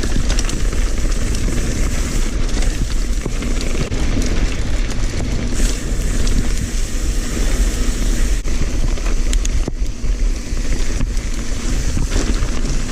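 Wind buffeting the microphone of a mountain bike rider's camera while riding a trail, with tyre rumble and frequent short knocks and rattles from the bike going over bumps.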